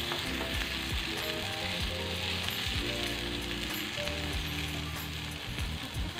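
Spiced okra and ground peanuts sizzling steadily as they fry in oil in a nonstick pan, stirred with a wooden spatula. Soft background music plays underneath.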